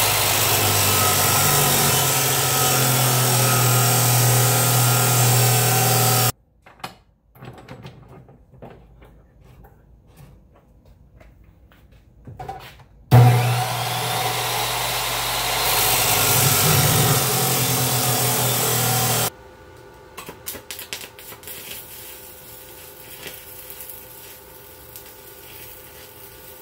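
Abrasive chop saw cutting through square steel tubing, twice: each cut runs about six seconds, with a few seconds of quiet handling between. After the second cut the sound drops to the quieter, steady crackle of an arc welder.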